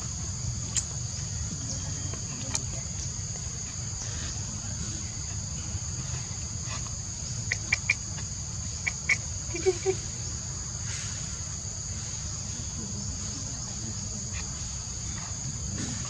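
Steady insect chorus, a high two-pitched drone that does not let up, over a low rumble. A few short high squeaks come in two small clusters around the middle.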